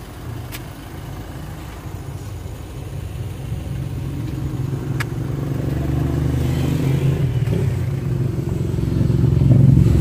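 Engine of a motor vehicle on the road, growing steadily louder as it approaches and loudest near the end. A couple of faint clicks at about half a second and five seconds in.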